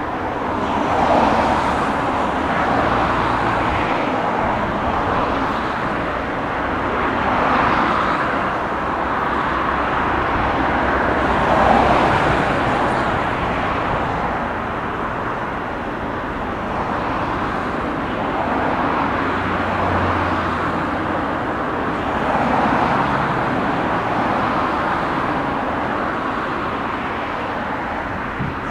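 Class 66 diesel locomotive's EMD two-stroke V12 engine under power as it draws a container freight train away, a steady drone with slow swells in loudness.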